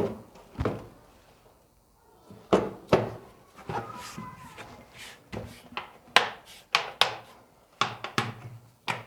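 A series of irregular knocks and clunks, about a dozen, with quiet gaps between them; no engine is running.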